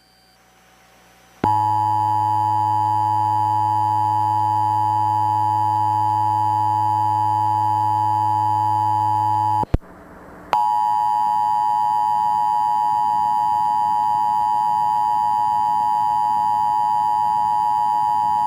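Emergency Alert System two-tone attention signal: a steady, loud dual tone starts about a second and a half in. It cuts off with a click for a moment near the middle, then resumes unchanged.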